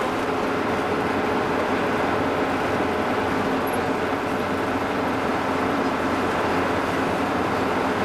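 A car driving on a road: steady engine hum and road noise.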